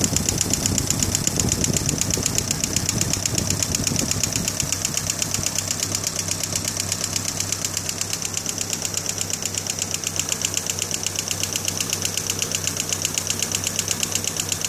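1991 GMC Sonoma's 2.5-litre Iron Duke pushrod four-cylinder idling with its valve cover off, its valvetrain making a fast, even ticking over the engine's hum. The tick persists despite new hydraulic lifters and a replaced cam gear; the owner is unsure whether it is normal and notes some rockers look fairly dry.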